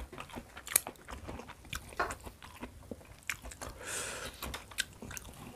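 Close-up mouth sounds of chewing boiled petai beans: a run of short, wet clicks and soft crunches, with a brief breathy hiss about four seconds in.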